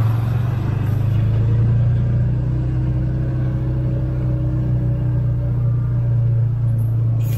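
Steady low rumble of a dog-pulled wheeled cart rolling along a gravel roadside, with a pickup towing a camper trailer passing close by on the road at the start.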